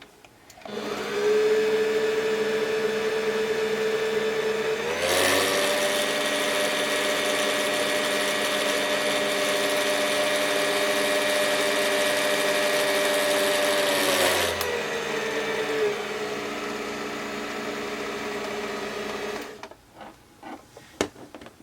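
Singer Patchwork sewing machine's electric motor running the bobbin winder to fill a bobbin with thread. It starts with a steady whine, speeds up to a higher, noisier pitch about five seconds in, slows back down about fourteen seconds in, and stops near the end, followed by a few light clicks.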